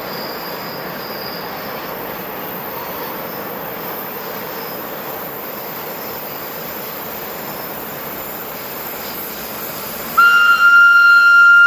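A BDe 4/4 electric railcar and its train running along the track with a steady rolling noise. Near the end the railcar sounds its horn: one loud, steady note that is still sounding at the end.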